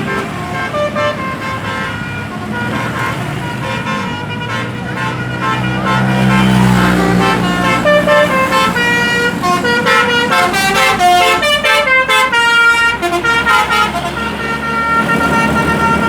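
Indonesian bus 'telolet' horn, a set of musical air-horn trumpets, playing a quick tune of changing notes for several seconds, starting about six seconds in, over the low rumble of the passing bus's engine.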